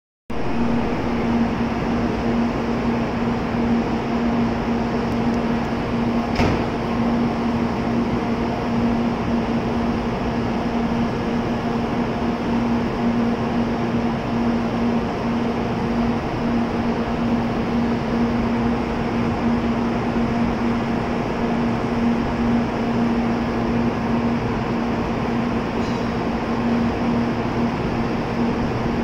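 N700A Shinkansen train standing at the platform, its onboard equipment and air conditioning humming steadily with a constant low tone. A single sharp click about six seconds in.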